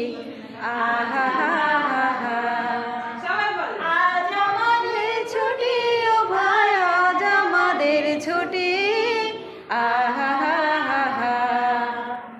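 High-pitched singing of a song, with long notes that bend up and down. It breaks off briefly about half a second in and again about three-quarters of the way through.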